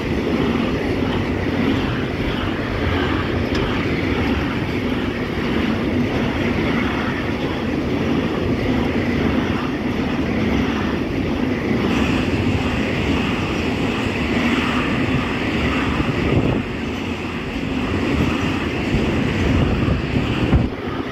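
Intermodal freight train's pocket wagons, loaded with semi-trailers, rolling past at speed: a steady rumble and clatter of steel wheels on rail. A brighter hiss joins from about halfway, and the noise drops off sharply near the end as the last wagons go by.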